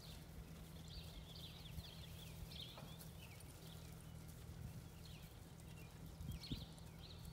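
Faint hoofbeats of a mare and her foal trotting on grass, over a low steady hum, with short high chirps in the background.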